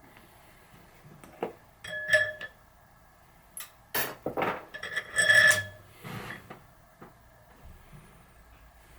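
Small metal tools and parts clinking and knocking, about half a dozen sharp hits with two that ring briefly like struck metal.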